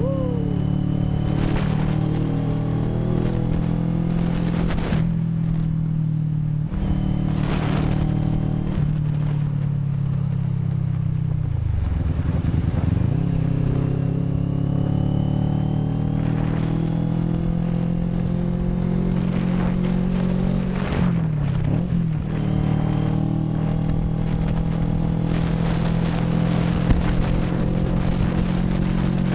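CFMoto NK400 motorcycle engine running at a steady cruise. Twice the revs drop and climb back again, about twelve seconds in and again around twenty-one seconds, as with a gear change or easing off the throttle.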